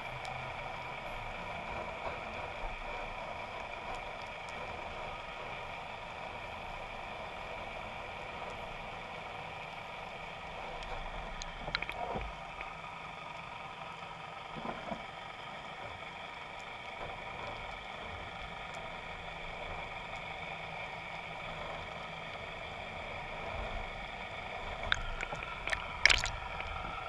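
Underwater sound picked up by a submerged camera in murky water: a steady hiss with a few faint steady tones, broken by a couple of knocks about twelve seconds in and a cluster of louder knocks and scrapes near the end.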